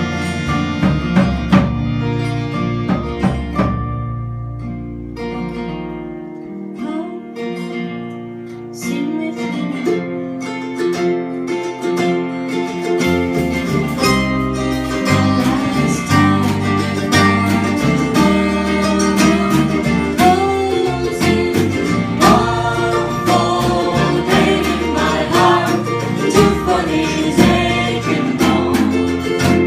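A live acoustic band plays a bluegrass-tinged song: guitar over bass, with a singing melody line on top. The bass drops out about six seconds in, and the full band comes back in about thirteen seconds in.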